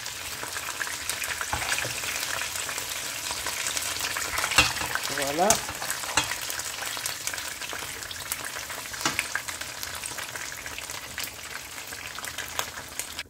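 Oil sizzling steadily around a whole fish shallow-frying in a pan over low heat, with scattered small pops and crackles.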